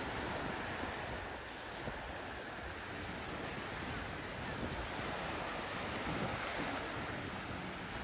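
Steady beach ambience: surf washing on the shore, with wind on the microphone.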